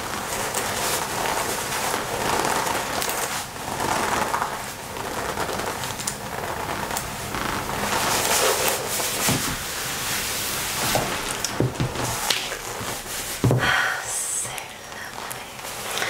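Hands rubbing and squeezing the front of a black leather biker jacket close to the microphone: a steady rustle of leather with scattered sharp creaks and clicks, the loudest near the end.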